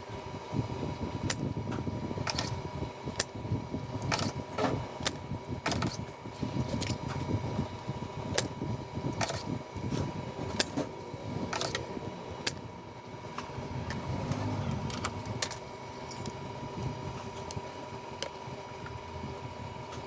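Desoldering work on a circuit board: repeated sharp clicks and snaps from a spring-loaded solder pump and hand tools, over low handling noise and a steady faint high tone.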